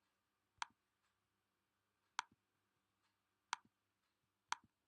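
Four faint single clicks on a laptop, coming about one to one and a half seconds apart, with near silence between them.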